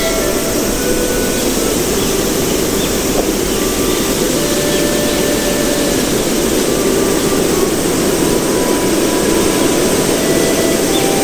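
Steady rushing noise, with faint short tones now and then.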